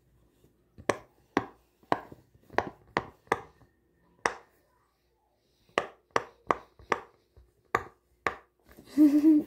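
Silicone Pop It fidget toy being pressed, its bubbles popping one by one in a string of sharp little pops: a run of seven, a pause, then about seven more.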